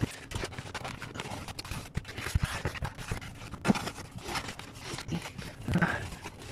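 A foam block being pushed, turned and fitted back into place under a car's dashboard, with irregular scrapes, rubs and small knocks against the plastic trim.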